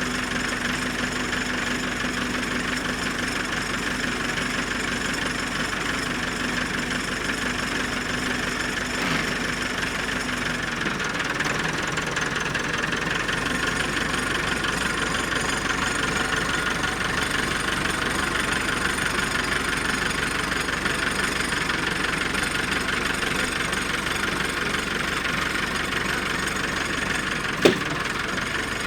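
Tractor engine running steadily; its note shifts about ten seconds in. A single sharp knock comes about a second before the end.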